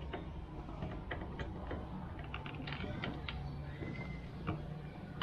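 Faint scattered clicks and light rattles of a steel security cable and plastic mirror housing being handled, over a low steady hum.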